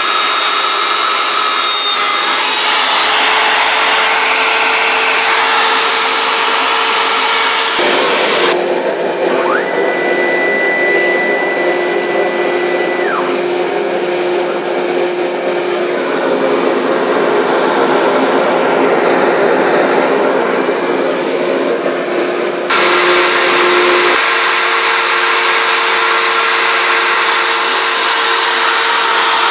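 A CNC router table's router and its shop dust collector run steadily together, a loud whooshing drone with a constant whine. About ten seconds in, a higher tone rises, holds for a few seconds and drops back.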